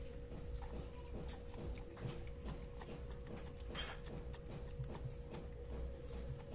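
Faint scattered clicks and ticks of gloved hands seating the oil filter cover and threading its small bolts into a Yamaha FZi V2.0 engine's crankcase, with a brief rustle about four seconds in, over a steady faint hum.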